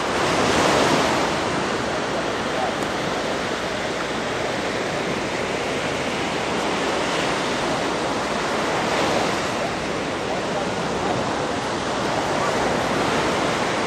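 Sea surf washing onto a sandy beach: a steady rush of waves that swells about a second in, again around eight or nine seconds, and near the end.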